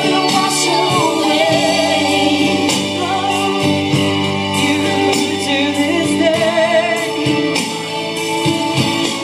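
Amplified country song with a singing voice over a backing track, some held notes wavering.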